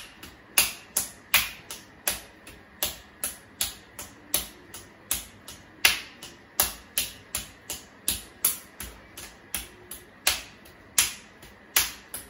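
Fists punching a bare stomach in a rapid run of alternating blows, about three a second, each landing as a sharp skin slap.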